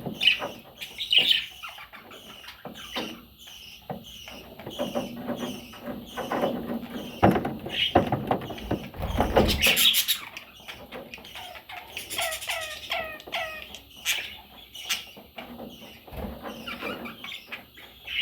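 Budgerigar chicks chirping and squeaking in repeated short calls, with a quick run of rapid chirps about two thirds of the way through and a few sharp knocks among them.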